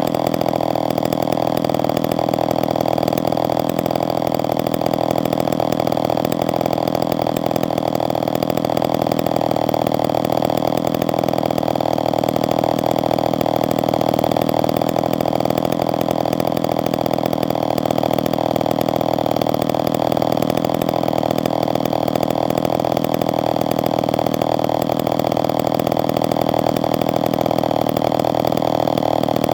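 Homelite XL-12 chainsaw's single-cylinder two-stroke engine idling steadily, with no revving.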